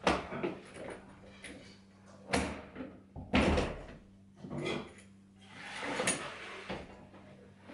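A few scattered household knocks and thumps, like a door or cupboard being handled, the loudest about three and a half seconds in.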